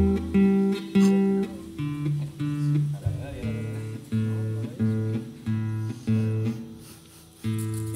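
Guitar picking a repeated figure of separate plucked notes, about two a second, after a deep low note dies away at the start; the notes break off briefly near the end.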